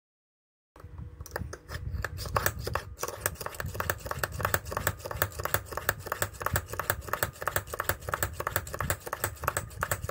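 Hand-twisted pin vise drill boring a small hole, its bit clicking and scraping in a fast, even series of about six or seven clicks a second, starting about a second in.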